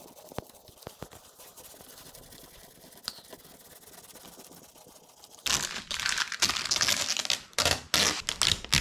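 Vinyl film being peeled and crinkled: faint clicks at first, then, about five and a half seconds in, a loud run of irregular crackling and tearing.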